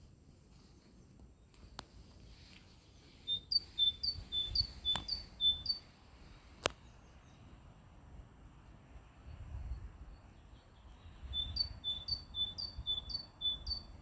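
Great tit singing: two phrases of its repeated two-note call, about five times each, the second phrase coming some eight seconds after the first. Two sharp clicks are heard in between.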